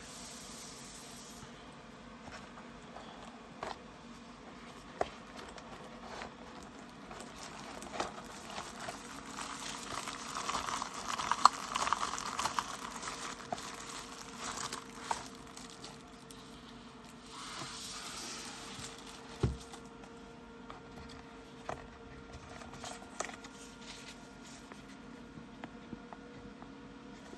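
Packaging being handled during an unboxing: crinkling and rustling with scattered light taps, loudest around the middle, and a single dull thump about two-thirds of the way through.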